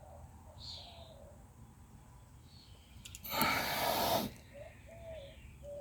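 A quiet stretch broken by a single hiss lasting about a second, a little past halfway, with a few faint short chirps.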